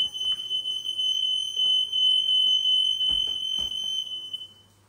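Smoke alarm sounding a steady, high-pitched tone that cuts off about four and a half seconds in.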